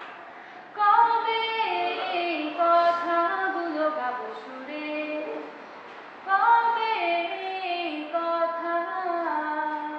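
A female voice singing a melody in two phrases, stepping between held notes; the second phrase begins a little past six seconds in.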